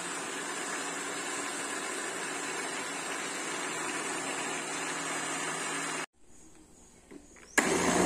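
Countertop blender motor running steadily, blending liquid cake batter as flour is added a little at a time. It cuts off abruptly about six seconds in, and a short, louder burst of noise starts near the end.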